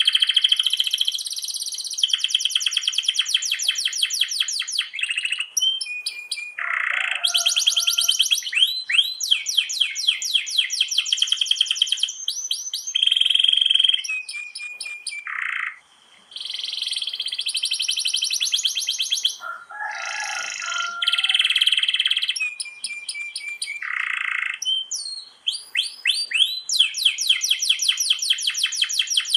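Domestic canary singing a long, unbroken song of fast rolling trills, each run a rapid string of the same repeated note, changing to a new run every second or two. The song breaks off briefly about sixteen seconds in.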